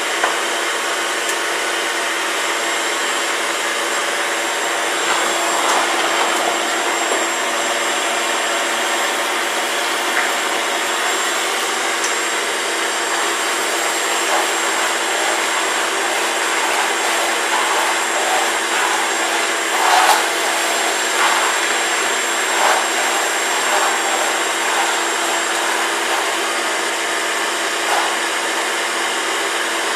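Vacuum cleaner running steadily with a high whine, getting briefly louder a few times about two-thirds of the way through. It is a sound the user takes for a vacuum that needs cleaning.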